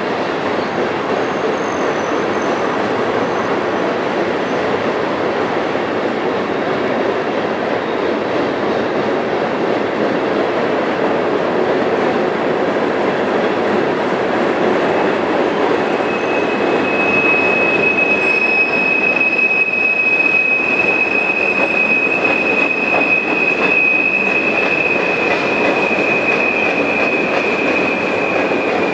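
Freight cars rolling past steadily, the continuous noise of steel wheels on rail. About halfway through, a steady high-pitched wheel squeal joins in and holds to the end.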